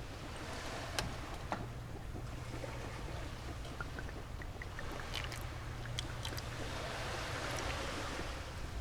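Sea waves washing on a beach, a steady wash that swells and eases, with a few light clicks and taps.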